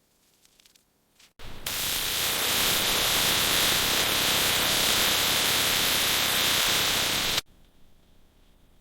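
A steady, loud spraying hiss that switches on sharply about a second and a half in and cuts off abruptly about six seconds later.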